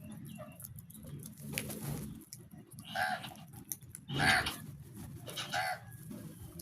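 A crow cawing three times, a little over a second apart, over a low continuous murmur of birds.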